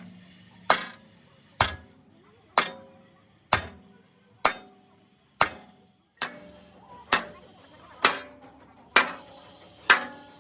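Hammer blows on metal bodywork, evenly paced at about one a second, each strike ringing briefly.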